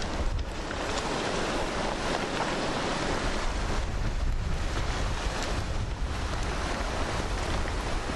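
Steady rushing of a flash flood's water running down a dry desert wash, with wind buffeting the microphone.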